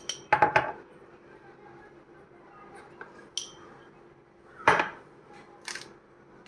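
A spoon clinking against dishware several times in quick succession with a short ring, then, a little past the middle, a sharper knock of the dishware, the loudest sound, and a lighter knock about a second later.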